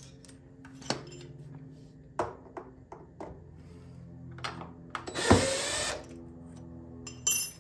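Tools and small parts clicking as screws are worked on the generator's plastic housing, then a power drill-driver runs briefly about five seconds in, the loudest sound, with another short burst near the end, over a faint steady hum.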